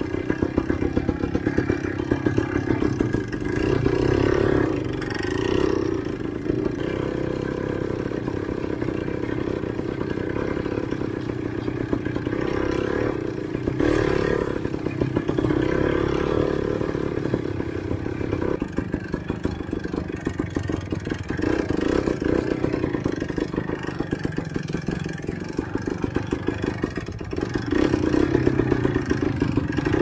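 Enduro motorcycle engine running off-road, rising and falling as the throttle opens and eases off every few seconds, loudest near the end.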